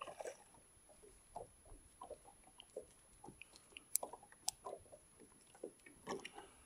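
Faint, irregular small plops and ticks of water lapping against the side of a small boat, with two sharp clicks about four seconds in.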